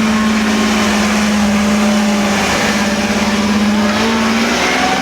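Jeep engine held at steady high revs, a strong continuous drone whose pitch wavers slightly near the end, over a low rumbling haze.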